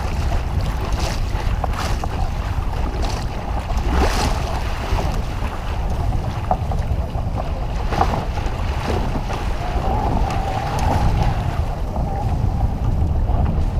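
Wind buffeting the microphone in a heavy low rumble, with water slapping and splashing against the hull of a kayak under way across choppy water, several sharper splashes standing out.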